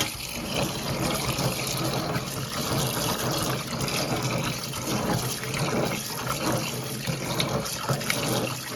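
Water running from a kitchen tap and splashing steadily while pine cones are rinsed.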